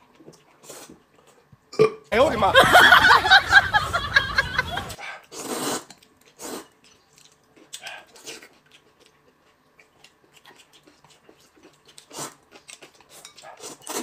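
A long, loud belch about two seconds in, lasting nearly three seconds, with a shorter one right after it; then only soft eating sounds.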